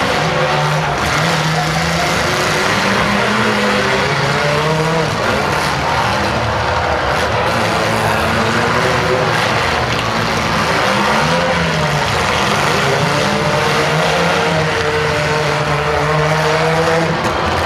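Several demolition derby small-car engines running and revving, their pitch rising and falling as the cars shove against one another.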